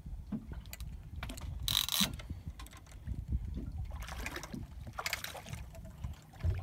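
Wind rumbling on the microphone over open water, with scattered clicks from a fishing reel as a hooked garfish is played. There is a short hiss about two seconds in, and splashing as the garfish leaps about four seconds in.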